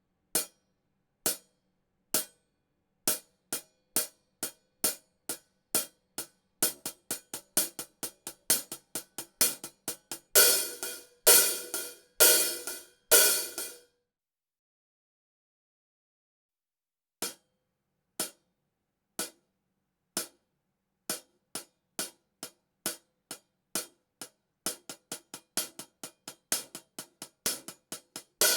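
Hi-hat cymbals struck with a drumstick: single strokes about a second apart that speed up into quick strokes, then four longer ringing strokes. After a pause of a few seconds, a second run starts slow again and speeds up.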